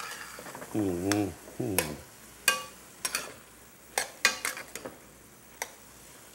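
Metal spoon stirring chopped onions, bell pepper and parsley sautéing in a metal pot, clinking and scraping against the pot several times over a soft sizzle. A short vocal sound is heard about a second in.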